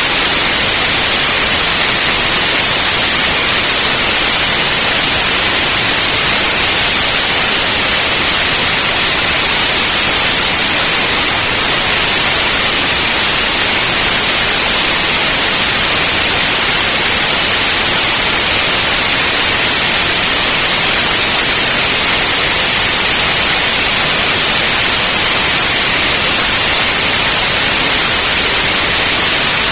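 Steady white noise: a loud, even hiss with no changes, strongest in the high end.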